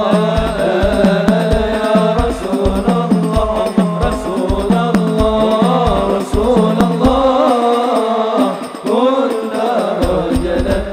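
Hadrah ensemble playing sholawat music: hand drums and bass drum keep a steady beat of about two strokes a second under a gliding melody line. The drums drop out for about three seconds after seven seconds in, leaving the melody alone before the beat returns.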